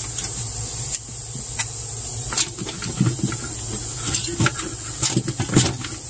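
Scattered light clicks and knocks from hands handling a refrigerator's evaporator coil and its wiring, over a steady high hiss.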